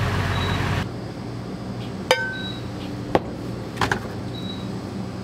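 A glass coffee carafe clinking against a commercial coffee brewer: three sharp clinks, the first ringing briefly, over a steady low hum. Under a second in, a rush of noise at the start cuts off.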